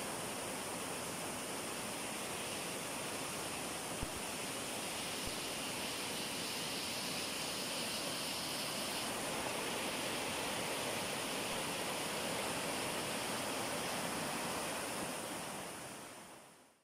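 Steady rush of river water tumbling over rocky cascades and small waterfalls, fading out near the end.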